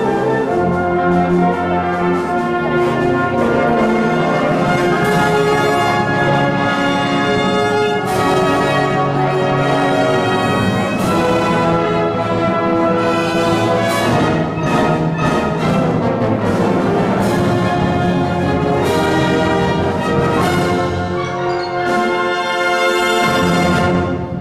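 Full high-school wind band playing: sustained brass and woodwind chords with sharp percussion strikes every few seconds. The final chord cuts off at the very end.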